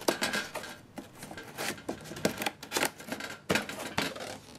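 Cardboard box being handled and moved about on a table: a string of irregular scrapes, taps and rustles, with several sharper knocks.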